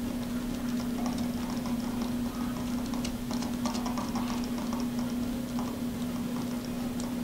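Small screwdriver driving tiny screws into a drone frame: light, irregular clicks and ticks of metal on metal and carbon fibre, over a steady low hum.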